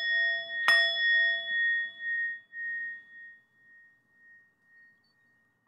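A small meditation bell struck twice, about a second apart, closing the chanted vows. Its clear ring pulses as it fades away over about four seconds.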